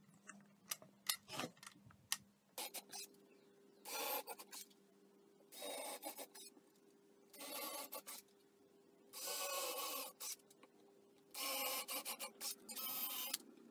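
Bosch 18V cordless drill boring holes for drawer pulls through wooden drawer fronts: five short runs of about a second each, the last the longest. A few light clicks come before the first run.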